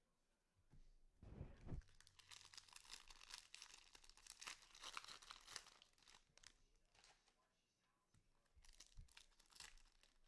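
Plastic wrapper of a trading card pack being torn open and crinkled, faintly, in two spells. There is a soft dull bump about a second and a half in.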